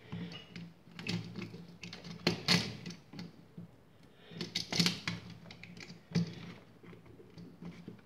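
Irregular clicks, taps and scrapes of metal mounting straps and stiff wiring as a GFCI receptacle and a toggle switch are pushed back into an electrical wall box, coming in short clusters every second or two.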